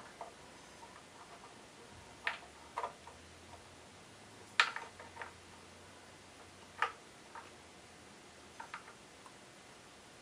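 Scattered light metallic clicks and clinks of hand work on a Nissan KA24E engine's timing-chain area, as the old hydraulic chain tensioner and its fasteners are worked loose. The taps come irregularly, a dozen or so, the sharpest about halfway through.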